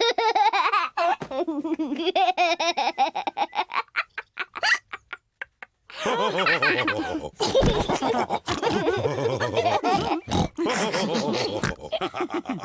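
Cartoon characters laughing together. The laughter dies away about five seconds in, and after a second of silence a busier stretch of voices and laughter starts.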